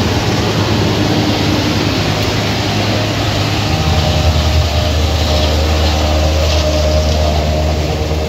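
Heavy farm diesel engine running steadily. About four seconds in, its note drops to a lower pitch.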